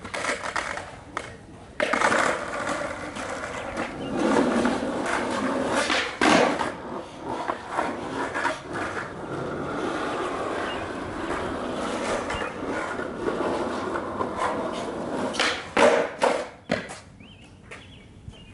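Skateboard wheels rolling over asphalt close to the microphone, a sustained rough rumble, broken by a few sharp clacks of the board striking the ground. The rolling fades out about two seconds before the end.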